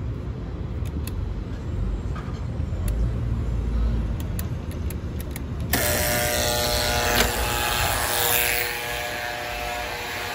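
Street traffic noise, a steady low rumble. About halfway through, a louder hiss with several steady whining tones starts suddenly and lasts about four seconds.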